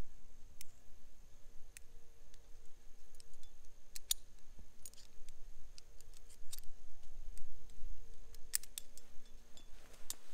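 Metal carabiners and climbing hardware clicking and clinking, a dozen or so sharp, irregular clicks, as a saddle tether is worked and clipped onto a rope with a prusik. A low rumble runs underneath.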